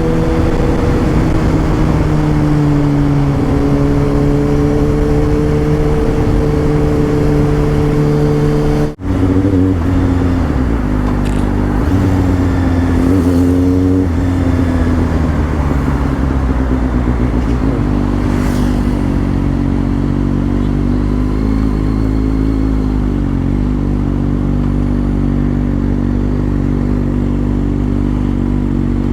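Kawasaki ZX6R inline-four engine running under way at fairly steady revs, its note rising and falling gently. About nine seconds in, the sound drops out for an instant.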